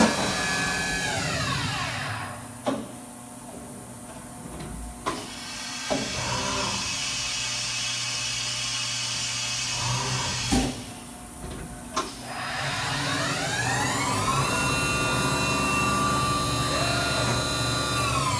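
Fadal 4020 vertical machining center's spindle whining as it winds down, with several sharp clunks in between. It then spins up again, runs at a steady speed for a few seconds, and starts to slow near the end.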